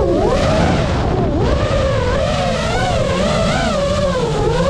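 FPV quadcopter's brushless motors and propellers whining, the pitch wavering up and down with the throttle and dipping sharply twice in the first second and a half, over a rough rush of prop wash and wind.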